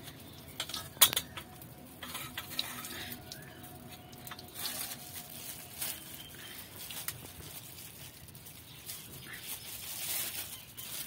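A little cooking oil heating in an aluminium kadai, giving scattered faint crackles and clicks, with one sharper click about a second in.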